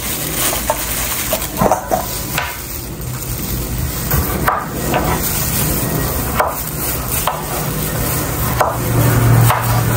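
Chef's knife cutting raw potatoes on a wooden cutting board: single knocks of the blade reaching the board about once a second, over a steady hiss.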